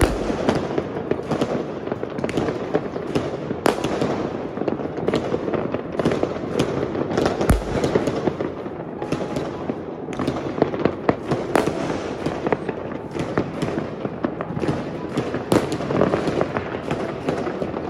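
Fireworks going off all around, a dense, continuous run of bangs and crackles, with a deeper boom about seven and a half seconds in.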